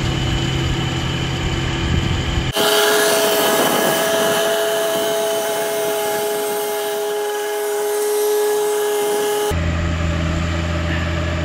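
John Deere 1025R compact tractor's three-cylinder diesel running steadily while its PTO-driven flail mower cuts grass. About two and a half seconds in, the sound switches to a steady, higher whine over a hiss with no low engine hum. The low engine hum returns near the end.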